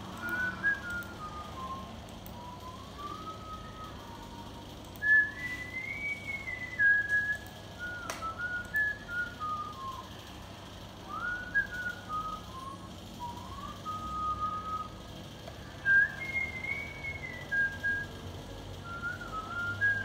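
A man whistling a tune through pursed lips: one clear tone rising and falling in gliding phrases, with short pauses between them.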